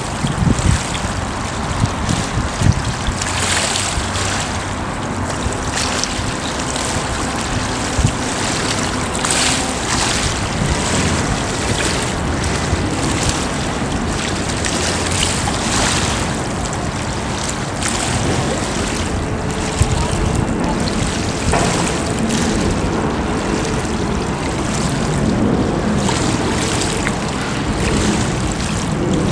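Steady wash and splash of moving water, swelling in surges every second or two.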